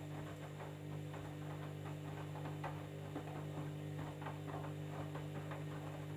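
Candy washing machine running a jeans cycle: a steady motor hum with irregular soft swishes and knocks from the load as the drum turns.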